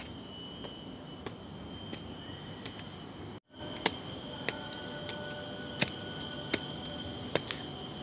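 Steady, shrill insect chorus in tropical forest, several high tones held at once, with scattered light clicks and taps. The sound drops out for a moment about three and a half seconds in.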